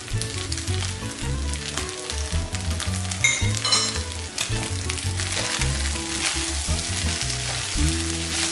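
Fried rice sizzling in a hot nonstick wok, with a spatula stirring and scraping through it near the end. Soft background music plays underneath.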